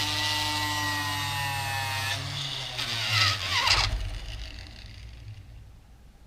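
Flex shaft grinder motor whining as the bit works the wood, its speed set by a foot pedal: steady for about two seconds, a short rev near the middle, then the motor winds down and fades.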